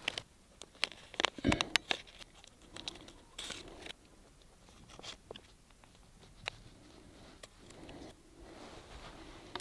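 A paper deer tag being crinkled, folded and notched with a knife blade: a quick run of sharp paper clicks and snips in the first two seconds, a short tearing rustle about three and a half seconds in, then softer rustling.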